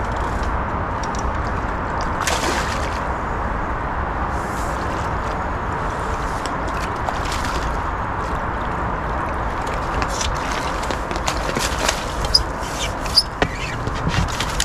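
Steady rushing outdoor background noise with a low rumble, then a run of small clicks and taps near the end.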